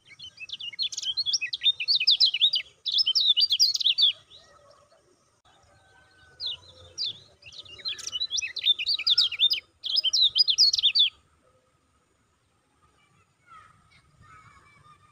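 Caged kecial kuning white-eye giving its rapid 'ciak ciak' chirping call in two bouts of quick, high chirps, the second starting about six seconds in. The calling stops about eleven seconds in.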